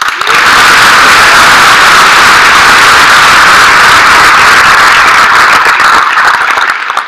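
A large theatre audience applauding, a dense patter of many hands clapping, dying away near the end.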